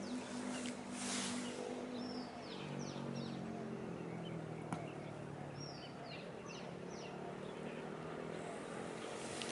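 A steady low engine hum that drops to a lower pitch about two and a half seconds in, with short bird chirps in two quick clusters and a single sharp click near the middle.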